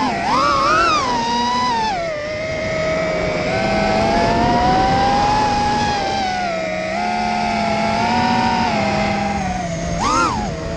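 Whine of a 5-inch FPV racing quadcopter's brushless motors (MB 2207 2400KV) and three-blade DAL 5040 props in flight, the pitch rising and falling with the throttle. It wavers up and down at first, holds fairly steady through the middle, then drops sharply and climbs again near the end.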